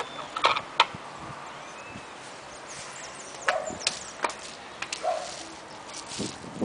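Scattered light knocks and taps from a small paint roller, its plastic handle clacking against a plastic paint tray and the roller pressing on a wall as a child paints.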